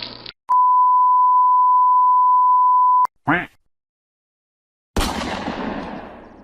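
A steady 1 kHz censor bleep tone held for about two and a half seconds, cut off sharply, followed by a brief chirp. About five seconds in, a sudden burst of noise starts and fades away over about two seconds.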